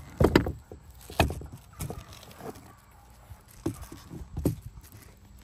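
A heavy replica championship belt with metal side plates being flipped over and set down by hand: a run of knocks and thumps, loudest in the first second and a half, then softer knocks every second or so.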